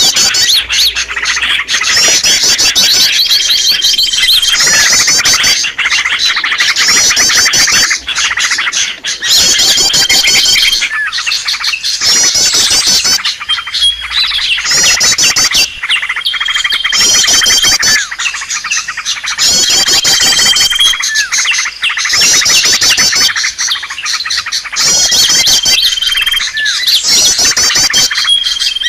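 Bird-luring recording of many small songbirds chirping and trilling at once, loud and continuous, with a short steady whistled note recurring every few seconds as the call pattern repeats.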